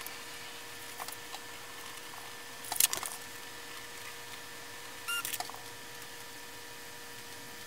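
Handling noise from drawing with a ballpoint pen on paper: a few light clicks, a louder rustling clatter about three seconds in, and a brief squeak a little after five seconds, over a faint steady hum.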